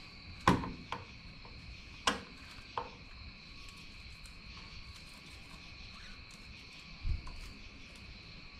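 Light clicks and taps of a screwdriver and saw chain while the chain tension is set on a Husqvarna 450 Rancher chainsaw: a few sharp clicks in the first three seconds, then a dull thump about seven seconds in. A faint steady high-pitched tone runs underneath.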